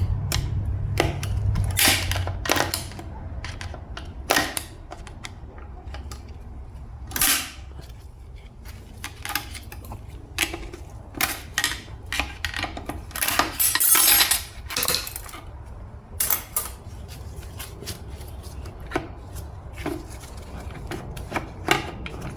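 Steel automatic-transmission internals clinking and clattering as they are worked free and handled during a teardown: an irregular string of sharp metal clicks and knocks, with a longer scraping rasp a little past halfway.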